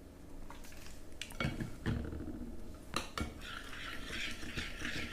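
A utensil stirring a thick slime mixture of glue and shaving foam in a bowl, knocking against the bowl a few times, then a steadier scraping from about three and a half seconds in.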